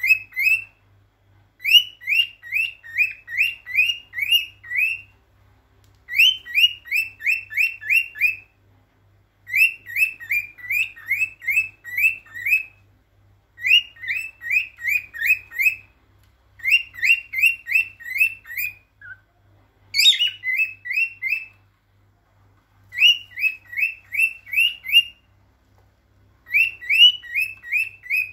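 Male cockatiel singing its mating song: runs of short, rising whistled chirps repeated in quick succession, each run lasting one to three seconds, with brief pauses between runs.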